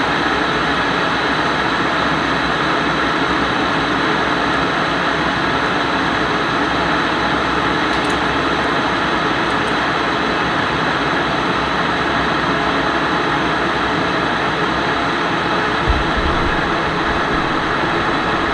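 Electric kettle heating water for tea: a steady hiss as the water warms, with one brief low thump near the end.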